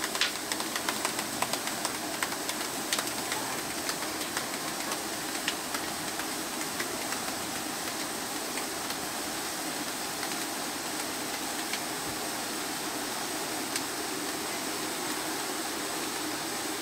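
Liquid nitrogen pouring from a dewar onto a turkey in a plastic bucket and boiling off with a steady hiss. Sharp crackling clicks, many in the first few seconds and sparser after, as the cold takes hold.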